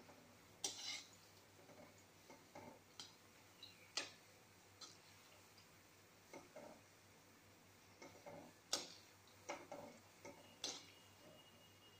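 Metal spatula tapping and scraping against an aluminium kadhai while gulab jamun are gently stirred in frying oil: faint, sharp clinks at irregular intervals.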